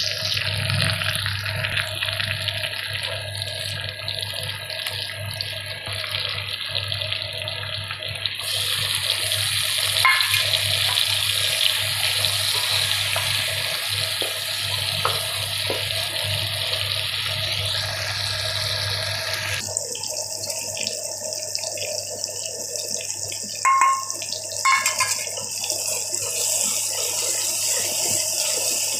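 Chopped onions and tomatoes frying in desi ghee in an aluminium pan: a steady sizzle whose tone changes abruptly twice, with a few brief knocks of the wooden spoon against the pan.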